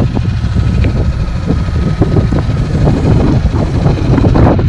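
Small fishing boat's engine running with a steady low rumble, with some wind on the microphone.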